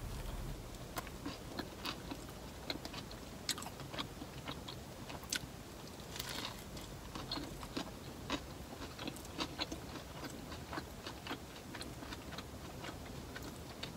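A person biting into and chewing a sandwich in a series of small, irregular wet clicks and soft crunches of bread and fillings. There is a bite at the start and another about six seconds in.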